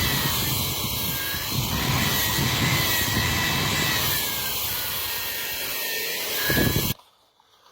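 Handheld electric burnishing tool running and scrubbing mud and grit off the surface of reclaimed wood, its motor whine wavering in pitch as it works. It cuts off abruptly about 7 seconds in.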